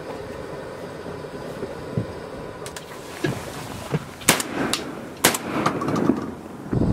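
A volley of shotgun shots fired at flying ducks: several lighter reports, with the two loudest blasts about a second apart a little past the middle.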